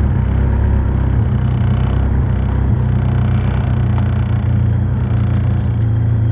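Nissan 240SX's KA24E four-cylinder engine idling steadily just after a cold start, heard from inside the cabin.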